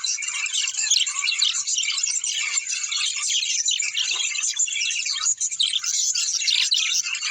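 A flock of small birds chattering and chirping together, a dense, continuous mass of short high-pitched calls overlapping one another.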